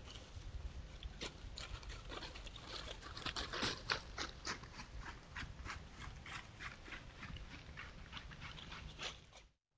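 Coyotes walking through dry fallen leaves: irregular crackling, rustling footsteps, loudest about three to four seconds in as one passes close. The sound cuts off suddenly near the end.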